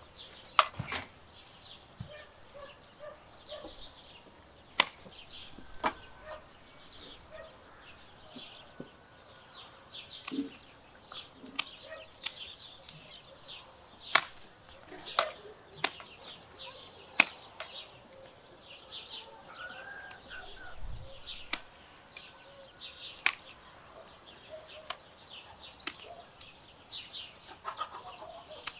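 Hand pruning shears snipping through peach-tree branches: a sharp click every second or few, at an uneven pace. Birds chirp throughout in the background.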